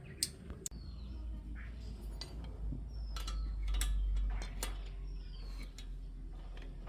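Scattered light clicks and taps, with a few short, falling bird chirps and a low rumble.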